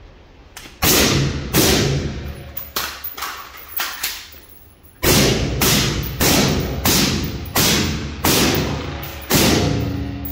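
A string of about a dozen rifle shots at a steady pace, roughly one every two-thirds of a second, each with a short ringing tail. There is a brief pause in the firing midway.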